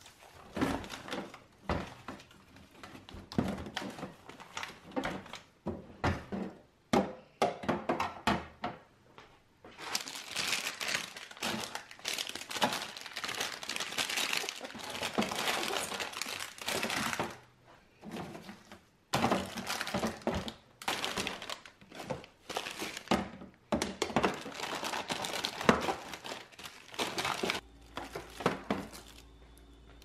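Plastic food packaging crinkling and frozen packs knocking against plastic freezer drawers as they are handled and sorted. At first there are scattered knocks, then long stretches of steady crinkling. Near the end it gives way to a faint steady hum.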